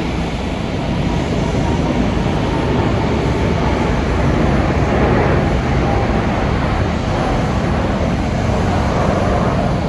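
Airliner's jet engines running loudly during departure, a steady broad noise over a low rumble that swells slightly in the middle.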